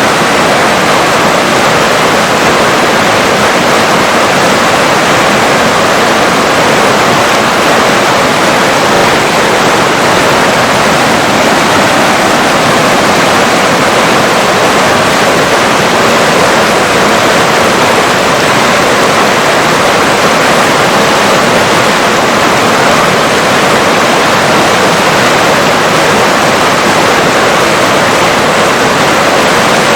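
River water rushing steadily, a constant full-bodied flow with no breaks or changes.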